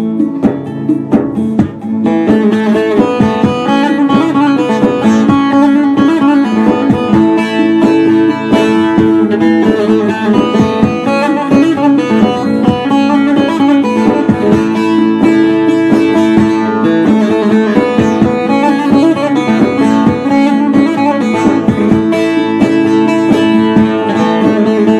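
Bağlama (saz) played solo: a quick, busy instrumental passage of plucked and strummed notes in a Turkish folk tune, getting louder and fuller about two seconds in.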